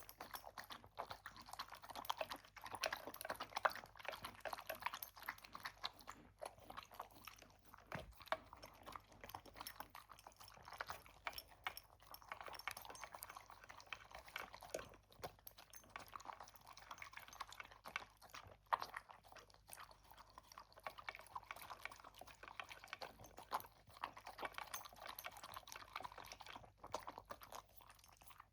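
A pet eating, a continuous run of small crisp crunches and clicks as it chews its food.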